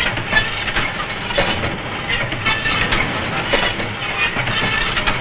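Fish-filleting machine running: a steady mechanical clatter with irregular clicks and some hiss.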